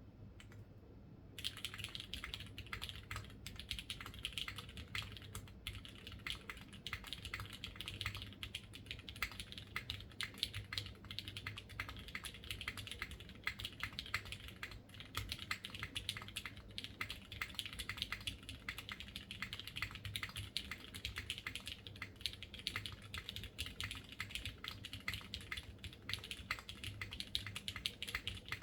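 Mechanical keyboard with lubed and filmed Cherry MX Red linear switches on an aluminium plate, typed on continuously at a fast, steady pace. After a few lone keystrokes, dense typing begins about a second in.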